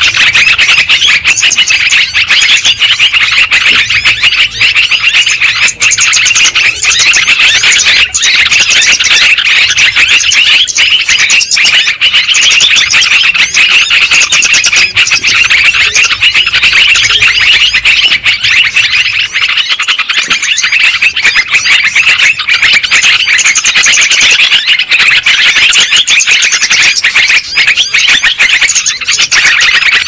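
Yellow-vented bulbuls (terucukan) calling and chattering without a break, many bubbly calls overlapping, played loud as a bird-trapping lure recording.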